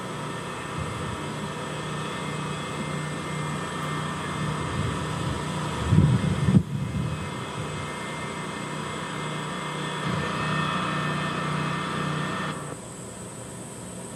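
Steady low drone of a running motor vehicle engine, with a loud low rumble about six seconds in. The sound changes abruptly twice, near the middle and near the end.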